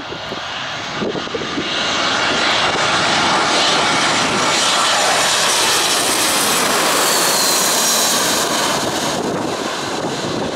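Airbus A320-family jet airliner's engines on final approach as it passes low overhead: the engine noise builds about a second in and stays loud, with a high whine that drops in pitch as the aircraft goes by, then eases slightly near the end.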